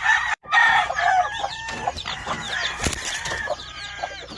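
Chickens: many chicks peeping in quick short chirps over hens clucking, with a rooster crowing. The sound cuts out for a moment near the start, and there is a single sharp click about three seconds in.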